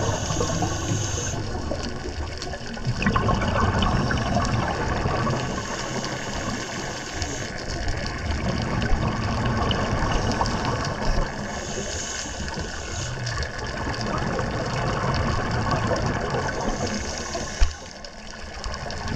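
Scuba regulator breathing underwater: a hiss on each inhale, coming back about every five to six seconds, with the bubbling rush of exhaled air in between. A short knock sounds near the end.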